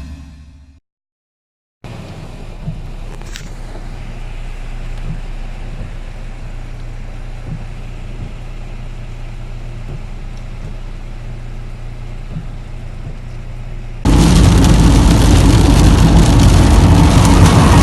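Steady hiss of rain over a low traffic rumble. Much louder music cuts in suddenly near the end.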